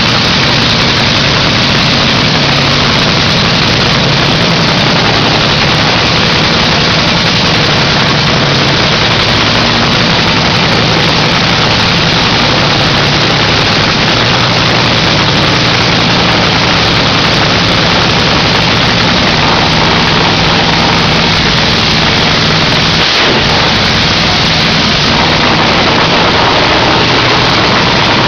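Nitromethane-burning Top Fuel Hemi dragster engine running steadily during a pit warm-up, heard from a few metres away. It is so loud that it overloads the microphone into a harsh, even hiss.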